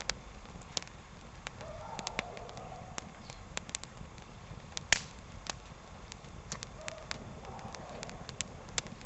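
Small fire of dry spruce branches crackling, with irregular sharp pops and snaps, the loudest about five seconds in.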